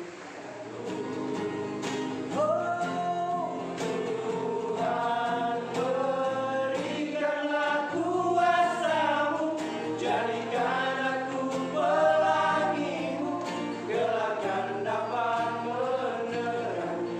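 A group of young men singing together to an acoustic guitar strummed by one of them.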